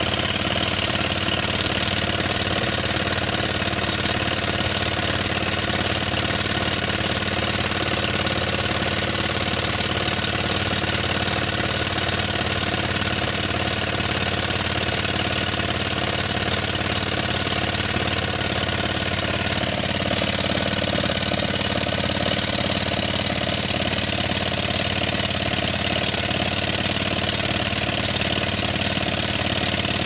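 Rig-mounted pneumatic rock drill hammering steadily as it drills an anchor hole into a stone wall, a dense, even run of rapid blows; its tone shifts slightly about twenty seconds in.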